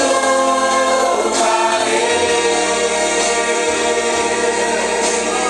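Congregational worship song sung by a group with instrumental accompaniment, holding a long sustained note in the chorus.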